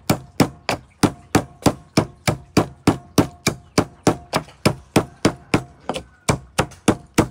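Field crabs being pounded in a mortar with a pestle, steady strikes at about four a second: crushing the crabs to make the broth for crab soup.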